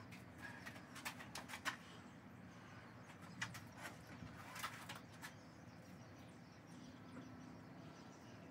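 Faint, scattered short scrapes and clicks of a small Bondo scraper picking up excess poured transom compound, heard over low room hum.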